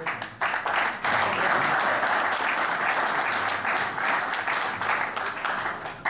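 Audience applauding: dense clapping from many hands that starts about half a second in and keeps going steadily.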